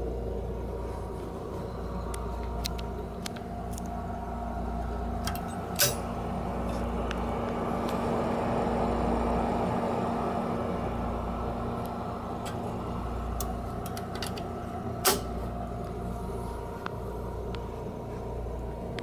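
Cooling fan of an ACMI 300 W xenon light source running with a steady hum made of several tones, over a low rumble. Two sharp clicks come about six and fifteen seconds in.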